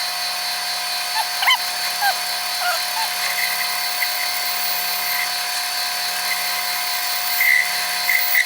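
Metal lathe running steadily with a constant whine while turning aluminum stock down in diameter. A few short squeaks come in the first few seconds.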